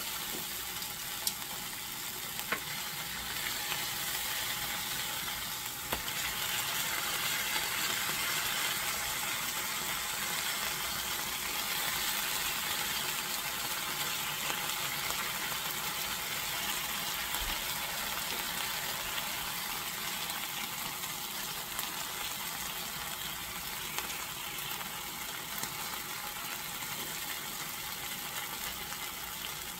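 Steaks sizzling steadily in hot oil in a cast-iron skillet as they sear, with a few light clicks of metal tongs against the pan as the meat is turned.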